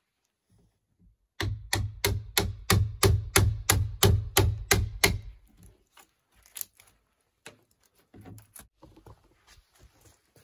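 Hatchet chopping a notch into a peeled log post: a fast run of about fourteen strikes, roughly three a second, that stops about five seconds in, followed by a few faint knocks.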